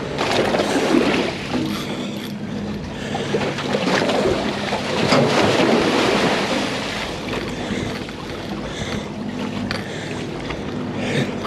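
Wind buffeting the microphone and water splashing at the boat's stern over a steady low hum of the boat's machinery, the splashing and wind swelling about a second in and again between about four and seven seconds in.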